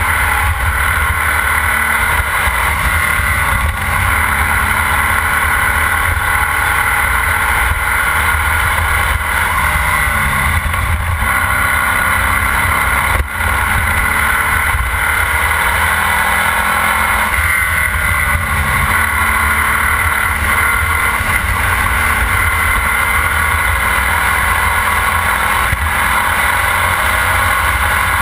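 Formula Vee racing car's air-cooled Volkswagen flat-four engine running hard at racing speed, heard from the car itself, its pitch falling and climbing again several times as the driver lifts and accelerates through corners. A brief sharp knock about 13 seconds in.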